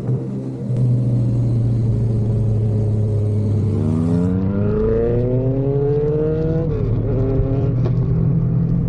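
1050cc superbike engine accelerating in a flyby: over a steady low engine hum, its note climbs for nearly three seconds starting about four seconds in, then drops abruptly as it passes.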